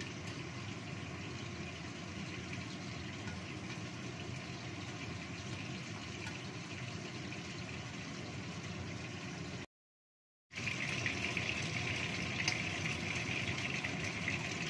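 Shark fish pieces frying in oil in a wok, a steady sizzle muffled under the lid. The sound cuts out briefly about ten seconds in, then returns louder and brighter with the lid off, with a few light clicks from a wooden spatula.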